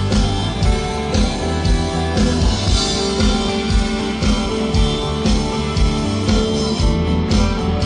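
A rock band plays live through an instrumental passage between sung lines, with electric guitar over a steady drum beat.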